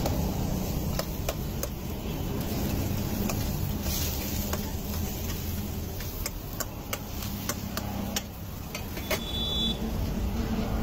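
Metal spatula clinking and scraping against a large pan of Maggi noodles as they are stirred: scattered sharp clicks, more often in the second half, over a steady low rumble.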